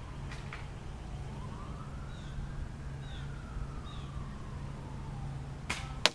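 A distant siren wailing, its pitch slowly rising and falling, over a steady low hum. Near the end come two sharp snaps about a third of a second apart, the second louder, fitting a spring airsoft rifle being fired.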